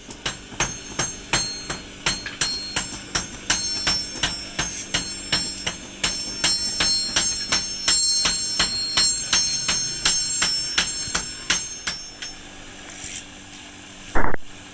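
Hand hammers striking steel on an anvil in a steady rhythm, about three ringing blows a second, as a garden trowel is forged; the blows stop about twelve seconds in. A short loud burst comes near the end.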